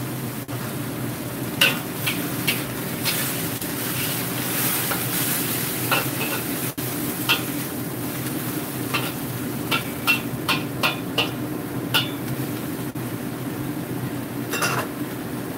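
Metal spatula scraping and clacking against a wok while mung bean sprouts and Chinese chives stir-fry with a steady sizzle. The sharp spatula strikes come in clusters, most of them between about nine and twelve seconds in.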